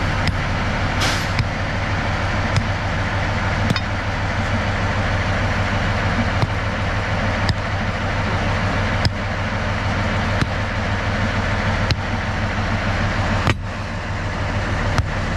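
Diesel engine of a narrow-gauge locomotive running steadily with a low, pulsing rumble. Sharp clicks come about every second and a half throughout.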